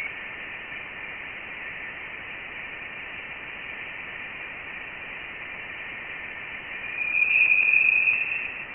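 Voyager 1 plasma wave instrument data turned into audio: a steady hiss with nothing above about 3 kHz, and a high whistling tone running through it that grows louder and slightly higher about seven seconds in. The tone is the plasma oscillation of interstellar gas, and its pitch marks the plasma's density.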